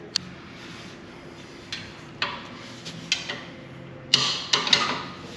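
Hand work on a motorcycle exhaust muffler: a sharp click right at the start, then several short scraping, hissing bursts, the loudest cluster about four seconds in.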